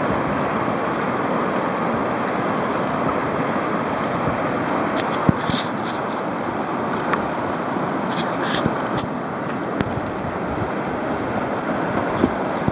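Whitewater rapids rushing steadily, with a couple of brief sharper splashes a little past halfway.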